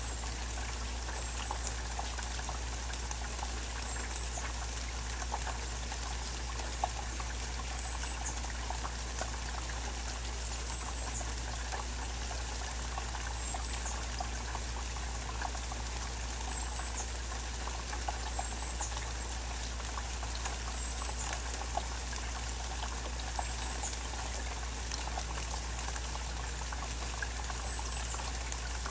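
Steady rain falling and dripping. A faint high, short chirp repeats every few seconds.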